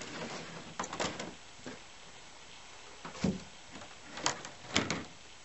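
Several separate plastic knocks and thuds as a white PVC-pipe stand is handled and lifted out of a black plastic tub, one of them a heavier thud about three seconds in.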